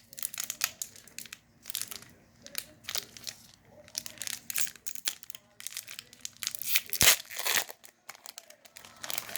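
Foil Pokémon booster pack being handled and torn open: repeated crinkling rustles of the wrapper, with one louder tear about two-thirds of the way through.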